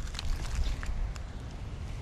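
Wind buffeting the microphone as a steady low rumble and hiss, with a few faint ticks.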